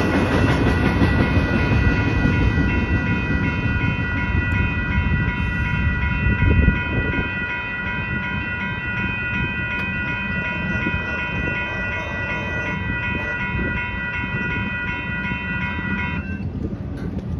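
A double-stack freight train rumbling over the rails and fading as its last cars pass. Over it a railroad crossing warning bell rings steadily and stops suddenly shortly before the end, as the crossing clears.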